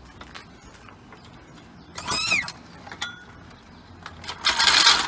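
Car being let down off a hydraulic floor jack onto stiff, cut-down coil springs: light mechanical clicks, a loud creaking squeal with wavering pitch about two seconds in, and a loud scraping rush near the end as the car settles.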